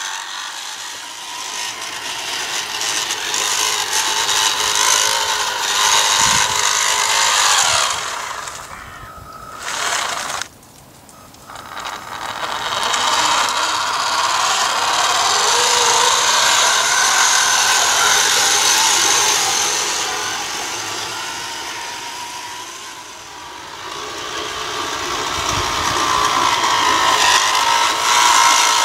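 Small electric motors and gearing of a garden-scale model locomotive and snowplough whirring as they push through deep snow, the pitch shifting with speed. The sound drops away briefly about ten seconds in, then builds back up.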